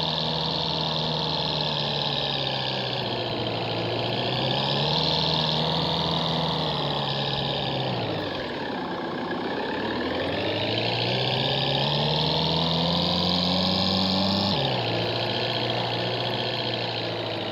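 Off-road jeep engine running, its revs rising and falling: climbing for a few seconds, sinking low about eight seconds in, climbing again and then dropping abruptly near the end.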